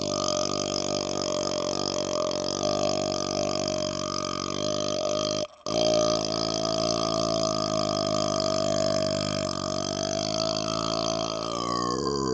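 A man's long, drawn-out burp, held close to a laptop microphone: one continuous, steady, low, croaking tone that breaks off for a split second about five and a half seconds in, then carries on.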